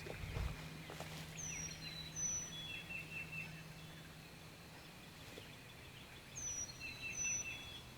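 A songbird singing the same short phrase twice, about five seconds apart: high falling whistles followed by a quick run of lower chirps. A faint steady low hum runs underneath.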